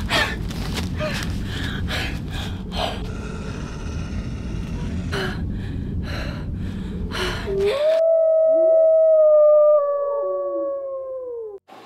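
Quick rustling footsteps running through dry leaves over a low rumble; about eight seconds in, a wolf howls, one long slightly falling call with fainter howls gliding beneath it, and it cuts off suddenly near the end.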